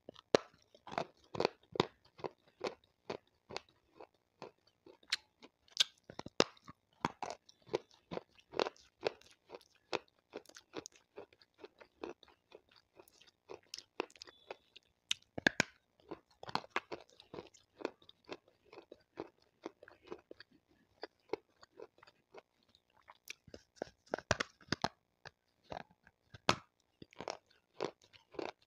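Water-soaked white slate stone being bitten and chewed close to a lavalier microphone: a dense, irregular run of sharp crunches, several a second, as pieces snap off and are ground between the teeth.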